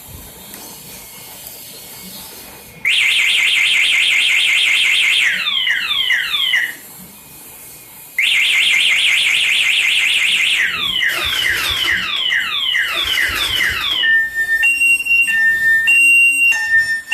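Motorcycle anti-theft alarm siren going off. About three seconds in, a fast warbling tone starts, then gives way to a run of falling chirps. It stops for a moment and repeats. Near the end it switches to a two-tone high-low beep.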